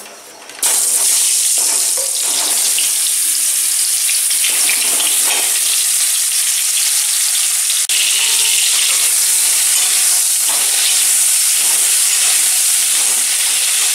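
Potato chunks dropped into hot mustard oil in a kadai, starting suddenly about half a second in and then sizzling steadily as they fry, with a slotted metal spatula scraping and turning them in the pan.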